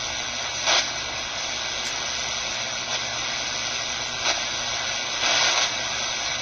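Shortwave static from a QFX R-14 portable radio's speaker as it is tuned across the 49-metre band: a steady hiss with a few brief louder surges. The owner suspects the noise comes from running the radio on its AC adapter instead of batteries.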